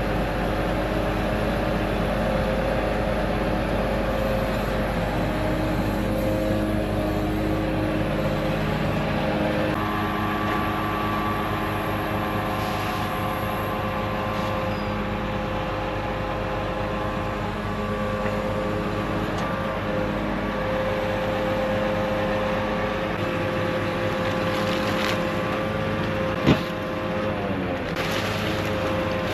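A motor engine running steadily, its pitch shifting now and then and sliding down near the end, with one sharp click near the end.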